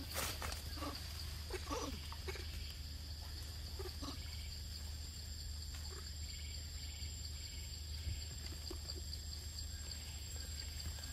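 Forest ambience: a steady, high insect chorus with a faint pulsing, over a low rumble. A few faint short calls come in the first couple of seconds.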